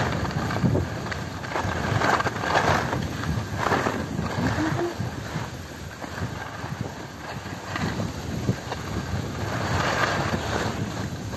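Wind rushing and buffeting over the microphone during a downhill ski run, with the hiss and scrape of skis on packed, tracked snow, swelling and easing as the skier turns.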